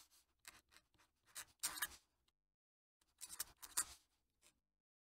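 Fountain pen nib scratching across paper in quick cursive strokes, faint, with a short pause a little after two seconds in.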